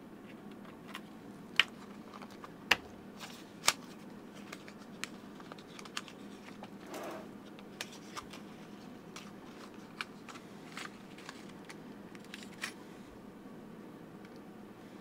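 Sharp clicks and light taps of a small knife being handled at a workbench, three loud clicks in the first few seconds, then softer taps and a short scrape about seven seconds in as the knife cuts open a small cardboard box.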